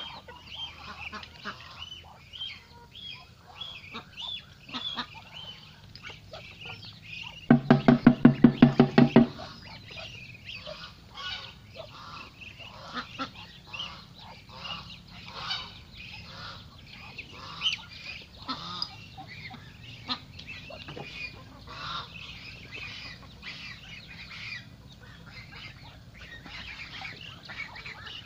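Mixed farmyard flock calling: geese honking and ducks quacking, many short overlapping calls. About eight seconds in, a plastic container is banged in a fast run of about ten knocks for under two seconds, as a feeding call to bring the birds in.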